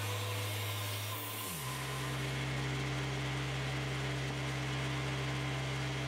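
Wood-Mizer portable bandsaw mill's engine running steadily, its pitch dropping about a second and a half in and then holding steady.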